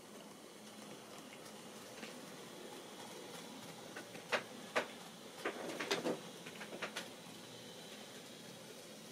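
Faint steady hiss, with a short run of small sharp clicks and light knocks about four to seven seconds in.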